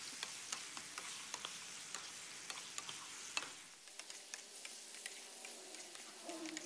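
Pork and vegetables in sauce being stir-fried in a pan with a wooden spatula: faint sizzling with small irregular clicks and scrapes of the spatula.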